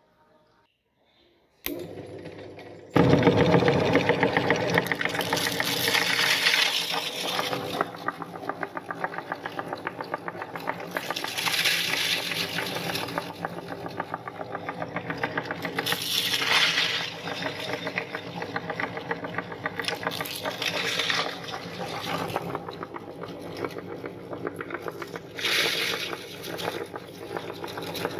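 Electric meat grinder switching on about three seconds in and running steadily, its motor humming with a fast rattle, as Chocos cereal is crunched through it in louder surges every few seconds.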